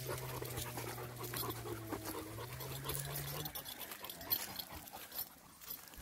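Rottweiler panting close by, with rustling steps through grass and dry leaves. Under it runs a low steady hum that stops about three and a half seconds in.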